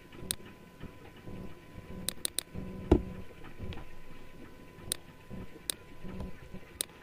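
Computer mouse clicking: a few sharp single clicks and a quick run of three about two seconds in, with one dull thump near the middle and a faint steady hum underneath.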